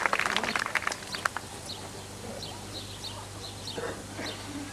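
Spectators clapping a good bowl, the applause dying away after about a second, followed by small birds chirping now and then.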